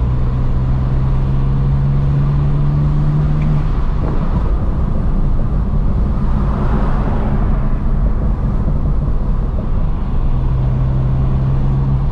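BMW N54 twin-turbo inline-six in an E92 335i, running while the car is driven. The engine note climbs slowly for about three and a half seconds, drops sharply just before four seconds in, then holds steady, with a hiss swelling and fading around the middle. The engine is running cleanly, with no more misfire.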